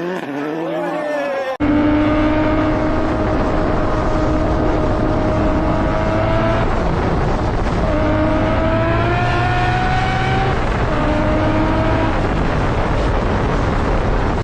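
A car engine pulling hard under load, its note climbing slowly in pitch and broken twice by gear changes, about six and ten seconds in. Just before this, a short clip of a different engine revving ends in a sudden cut.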